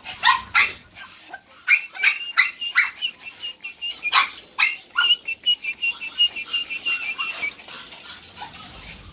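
Small-breed dogs in wire cages barking and yapping in short, sharp, repeated barks. A high, thin, quickly pulsing whine runs through the middle.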